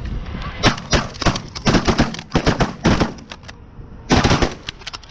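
Several shotguns firing at geese flying over decoys, a rapid, overlapping volley of a dozen or more blasts over about three seconds. A second cluster of shots follows about four seconds in.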